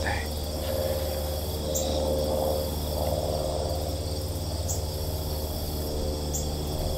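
Steady chorus of crickets and other insects, a few high thin tones held without a break, over a constant low rumble.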